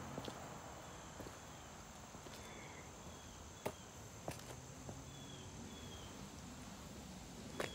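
Faint outdoor quiet with a steady high-pitched insect trill, a few short high chirps and a few sharp clicks.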